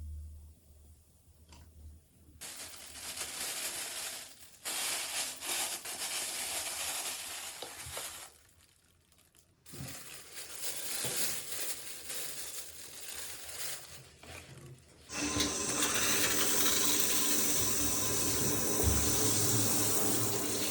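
Stop-start stretches of water noise, then from about fifteen seconds in a shower head spraying water steadily and loudly.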